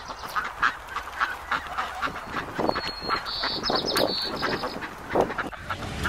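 Canada geese with their goslings calling: a run of short honks and clucks, with a high chirping trill about three seconds in.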